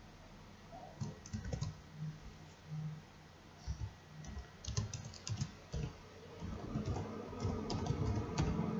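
Computer keyboard typing and mouse clicks in short bursts of sharp taps. A steady low background hum comes up over the last couple of seconds.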